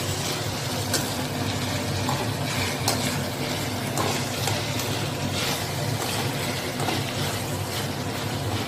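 Sliced mushrooms and vegetables sizzling as they are stir-fried in a steel pan, with a few clicks of a slotted spoon against the pan as they are stirred, over a steady low hum.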